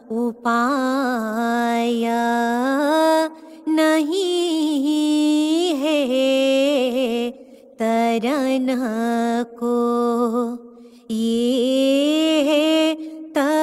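A woman's solo voice chanting a ginan, an Ismaili devotional hymn, in long ornamented phrases that glide and waver in pitch. The phrases are broken by a few short pauses for breath, with no accompaniment heard in the gaps.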